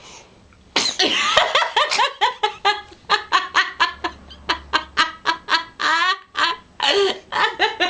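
A baby laughing hard: a long run of quick, high-pitched laughs, starting suddenly just under a second in, with a brief catch for breath about six seconds in.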